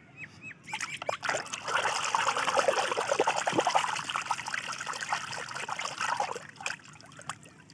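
Water splashing and sloshing in a plastic tub as a hand swishes a plastic toy animal through it, with many small drips and plops. It starts about a second in and dies away, leaving a few last drips near the end.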